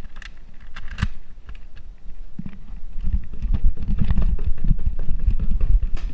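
Handling noise from a GoPro being jostled: a few sharp clicks in the first second, then dense, irregular low thumping and rumble from about two and a half seconds in.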